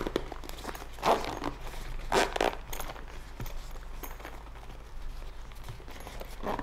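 Zipper of a BUBM fabric headphone case being pulled shut in short, effortful strokes, with fabric rustling: the case is hard to close over the headphones inside. The louder strokes come about a second in and twice around two seconds in, then softer scraping.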